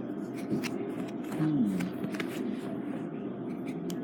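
Indistinct background voices with scattered light clicks and rustles; one brief falling vocal sound about a second and a half in.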